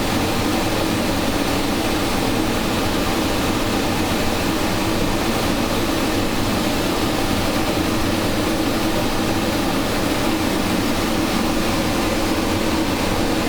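Big-flame multi-jet Delta Elite hand torch burning steadily, a constant even rushing noise with a faint low hum beneath it.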